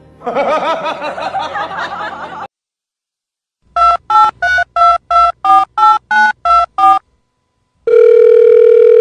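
Telephone keypad dialing: eleven short two-tone beeps, about three a second, then a loud steady tone from about 8 s in. Before the dialing comes a wavering, voice-like sound lasting about two seconds.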